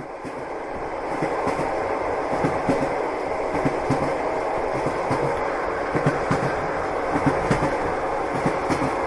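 A moving passenger train heard from inside the carriage: a steady rumble of wheels on rails with irregular knocks and clatter from the wheels. It fades in over the first second.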